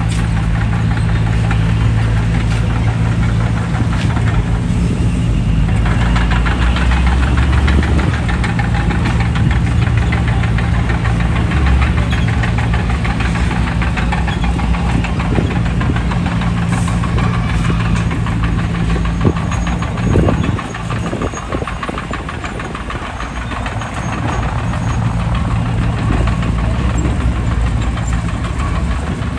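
D20P crawler bulldozer's diesel engine running steadily under work, with a dense rattling clatter over it. The engine note drops briefly about twenty seconds in, then picks up again.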